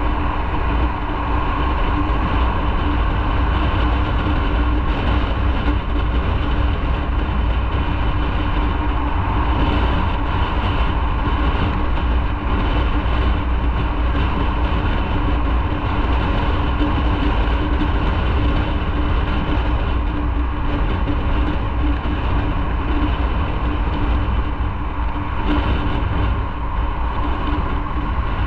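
Motorcycle on the move at a steady pace: a continuous engine drone with a steady hum under it, mixed with rushing road and wind noise.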